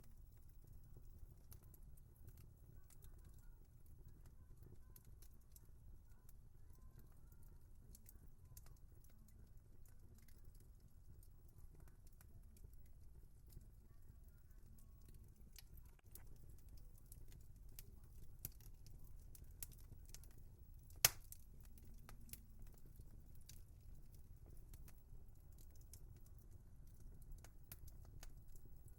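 Wood fire burning with a faint low rumble and scattered small crackles and pops, and one sharp, louder pop about two-thirds of the way through.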